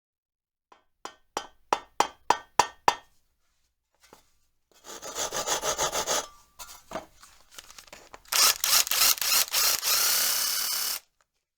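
Workshop tool sounds: seven sharp taps at about three a second, then a run of rasping strokes, then a longer, louder rasp that cuts off abruptly.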